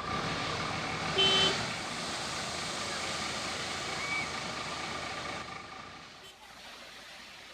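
Heavy diesel vehicle engine running steadily, with a brief loud high tone about a second in. The engine fades away over the last couple of seconds.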